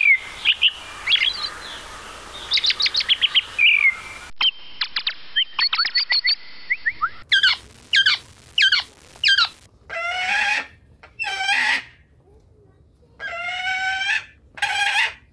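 Songbirds chirping in quick series of short, high notes. About two-thirds of the way through, a rooster crows a few times in long calls of a second or so.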